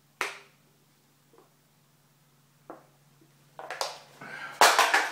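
A man chugging a canned drink: a few short gulping sounds at first, then a run of louder gasping breaths and knocks from about three and a half seconds in, loudest near the end.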